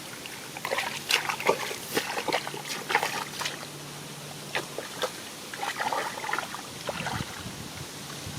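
Shallow rice-field water splashing and trickling irregularly as it is worked by hand, with many short sharp splashes.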